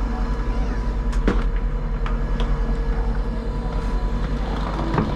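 Steady running noise heard from inside a moving vehicle: a low rumble with a constant hum and a few short clicks and knocks.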